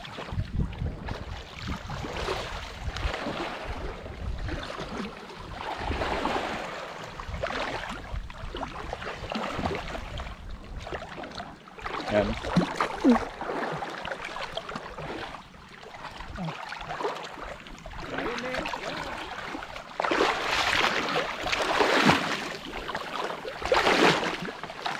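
Water sloshing and splashing against a small fishing boat on the sea, with wind buffeting the microphone. The water noise grows louder about twenty seconds in.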